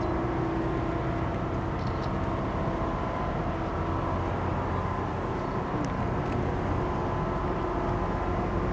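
Steady low drone of a passenger ship's engines and machinery, an even rumble with a faint hum and no change in level.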